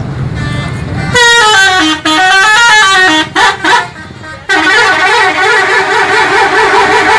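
Musical multi-tone bus horn (a 'telolet' horn) playing a stepping tune of notes, then a warbling horn melody, over the rumble of a bus engine at the start.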